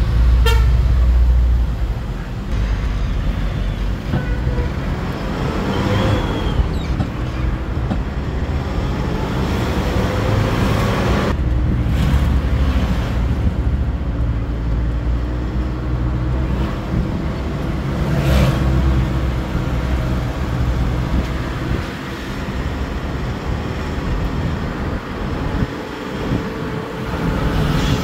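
Kia Bongo 3 diesel truck on the road, its engine running under way with steady road noise and its pitch rising and falling several times. This is a road test of the newly rebuilt fuel injectors and new fuel filter, which were fitted to cure hard starting and low power.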